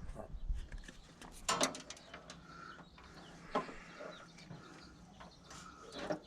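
A few sharp clicks and light rustling from wire, barrel connectors and hand tools being handled during the wiring work, with the loudest click about a second and a half in and another about three and a half seconds in, over a low background with brief faint high tones.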